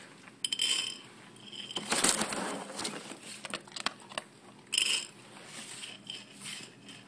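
German Shorthaired Pointer eating dry kibble from a stainless steel bowl: crunching, with pieces clinking against the metal, the loudest burst about two seconds in.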